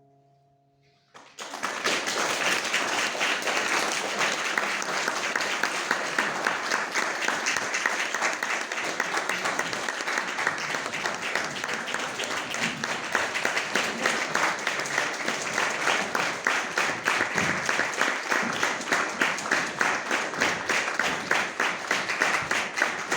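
Audience applause breaking out about a second in, after the last plucked notes of the mandolin ensemble have died away. Near the end the clapping falls into a steady, even rhythm.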